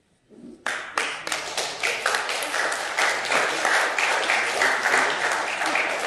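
A congregation applauding: many hands clapping together, starting suddenly under a second in and carrying on steadily.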